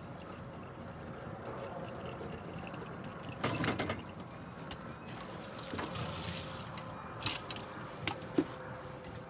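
A metal sediment grab sampler hauled up on its cable and set down on a boat deck: a loud clatter as it comes aboard about three and a half seconds in, water pouring off it, then a few sharp metal knocks near the end. A steady low hum runs underneath.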